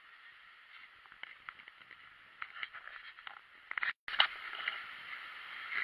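Faint outdoor ambience of a resort pool or beach, with scattered small clicks and knocks from handling of the action camera. A brief break about four seconds in, after which the ambience is a little louder.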